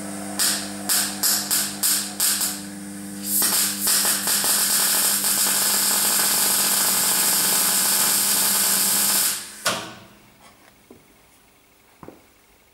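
MIG/MAG welder running, with a steady electrical hum. About seven short hissing bursts come in the first two and a half seconds, then a loud steady hiss for about six seconds that cuts off suddenly with a thump, while the wire-feed speed is being set.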